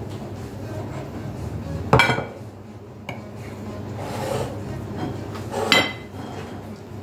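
Two sharp clinks of tableware, about four seconds apart, each ringing briefly, over a steady low background.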